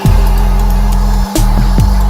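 Background electronic music with a deep, heavy bass line and a drum beat. The bass notes drop in pitch, and the bass cuts out briefly a little past halfway.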